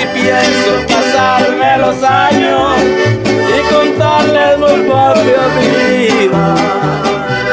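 Mexican accordion-led music with no singing: an accordion plays a wavering melody over alternating bass notes and a steady drum beat.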